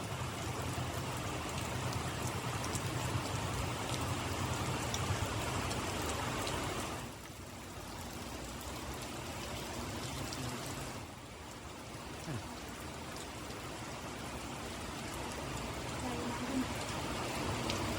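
Rain falling steadily, a hiss of drops on the ground and surfaces, with faint drip ticks. The level drops abruptly about seven seconds in and again about eleven seconds in.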